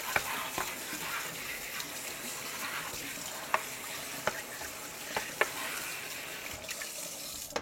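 Tap water running steadily as a part of a mop bucket is rinsed under it, with several light knocks of the part being handled. The water cuts off suddenly at the end.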